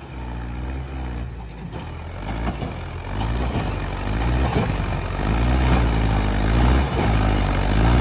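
Mahindra 575 DI tractor's four-cylinder diesel engine labouring under load as the tractor, dug into soft sand, strains to pull a loaded trailer; its pitch wavers up and down, and it grows louder about three seconds in.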